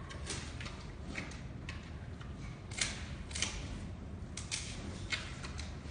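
Giant panda chewing bamboo: a run of sharp, uneven cracks and crunches, about a dozen over a few seconds.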